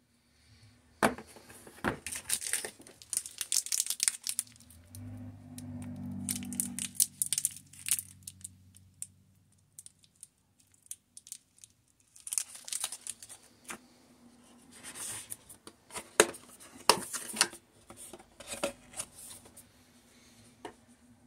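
Plastic packaging crinkling and rustling in the hands, with sharp clicks and taps of small parts and cords being handled, in two busy spells with a quieter gap between.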